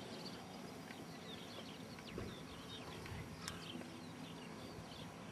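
Songbirds singing: many short chirps and trills, faint, over a low rumble, with one sharp click about three and a half seconds in.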